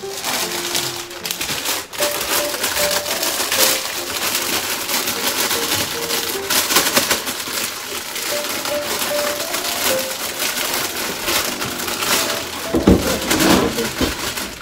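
Crisp lettuce leaves crinkling and rustling as a head of sunny lettuce is handled and washed, with a couple of low bumps near the end. Faint background music plays under it.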